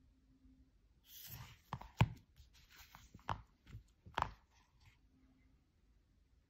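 Shrink-wrapped CD case being handled: a brief rustle of the plastic wrap, then a few sharp clicks and knocks of the case, the loudest about two seconds in.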